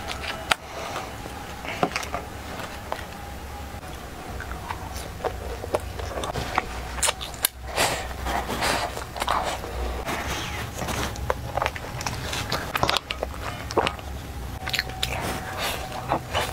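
Close-up eating sounds: crunchy bites and chewing of breaded, fried star-shaped pieces pulled off wooden skewers, with many sharp crackles and clicks throughout.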